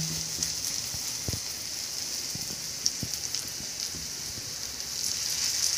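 Oil sizzling steadily under coriander and gram-flour (besan) chila patties shallow-frying in a nonstick pan: an even hiss with a few soft ticks.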